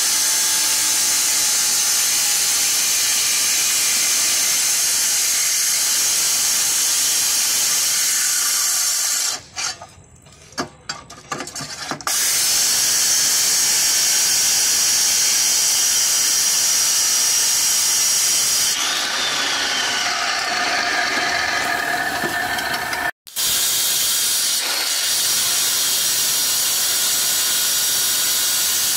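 Handheld electric marble-cutting circular saw with a diamond blade grinding through the edge of a marble slab, water fed onto the cut, making a steady, loud, high hiss. About nine seconds in the sound drops away for roughly three seconds, with a few clicks, before the cutting noise returns.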